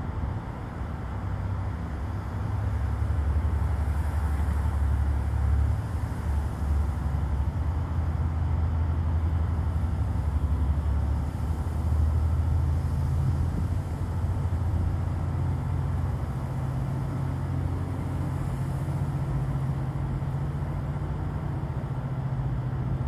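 Distant thunder rumbling on and on from a thunderstorm, a deep low rumble that swells and eases without letting up.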